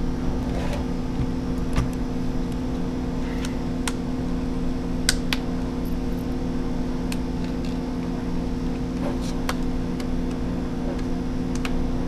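A steady low hum runs throughout. Over it come a few sharp small clicks and taps, spaced seconds apart, from plastic connectors and laptop parts being handled and unplugged on the motherboard.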